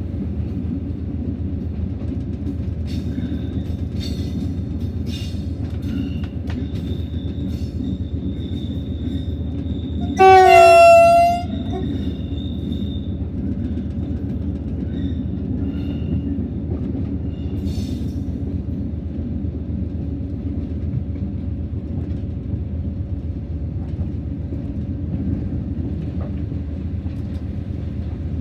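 BB 60000 diesel locomotive running steadily along the track, a continuous low engine and rail rumble. About ten seconds in, one loud horn blast lasts a little over a second.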